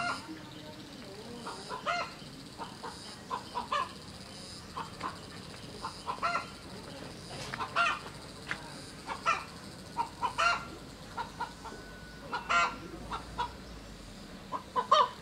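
Chickens clucking: short calls repeated at uneven intervals.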